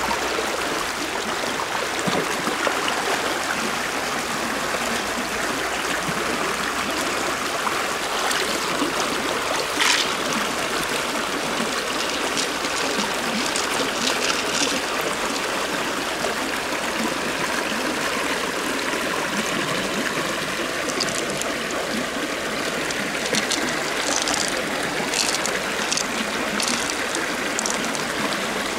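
Steady rush of flowing stream water, with a few scattered light clicks, more of them in the second half.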